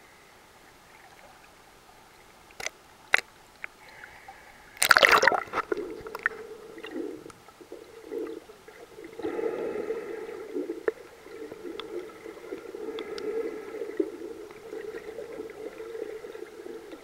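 Camera plunging from the surface into lake water with a loud splash about five seconds in, after two sharp clicks, then continuous muffled underwater gurgling and sloshing.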